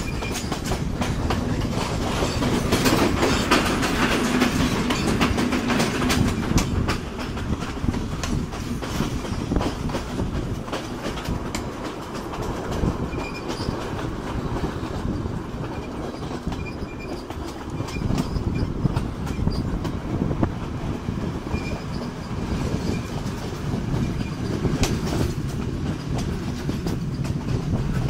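Passenger train running along the track, heard from an open carriage window: a steady rumble of wheels on rail with repeated clickety-clack over the rail joints and carriage rattle.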